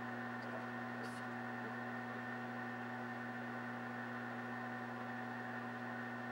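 Steady electrical hum over a faint hiss, with one faint tick about a second in.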